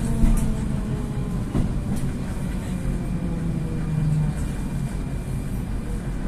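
Rusich metro train running, heard from inside the car: a steady rumble of wheels on the rails under a faint motor whine that slowly falls in pitch as the train slows alongside a station platform. There are a couple of sharp clicks about a second and a half in.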